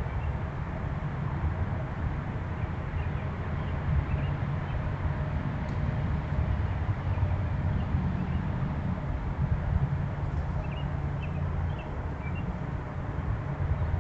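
Outdoor ambience: a steady low rumble, with faint short bird chirps here and there, several close together about ten to eleven seconds in.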